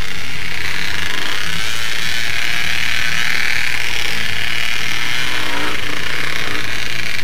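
Off-road vehicle engine running steadily as it rides a rough dirt trail, loud and close, with the revs rising briefly about five and a half seconds in.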